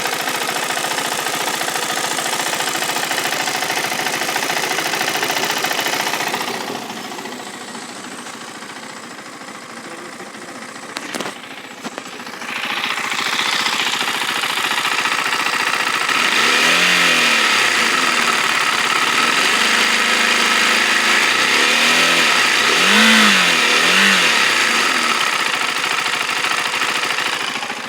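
KTM Duke 390's single-cylinder engine running with a ticking sound, which the owner asks about as a possible fault. It drops quieter for several seconds midway, with a few clicks, then runs louder again and is revved in short blips, twice and then three times.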